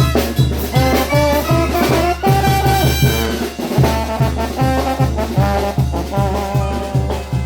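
Mexican banda brass band playing: trumpets and trombones carry the melody over a steady low bass beat. The low beat drops out briefly about halfway, then comes back.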